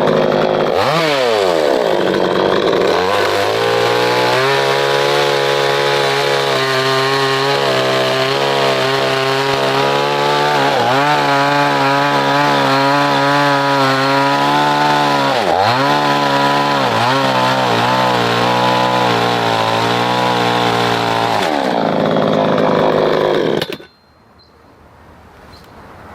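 Chainsaw engine running at high revs through wood, its pitch dipping briefly a few times. Near the end it slows and cuts off suddenly.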